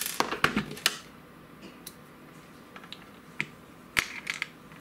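Small screw and screwdriver clicking and clattering against the plastic hard-drive enclosure and the drive: a quick run of clicks in the first second, then a few single clicks, the loudest about four seconds in.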